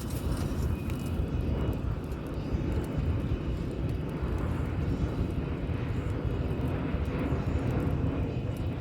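Wind blowing on the microphone: a steady low rumble.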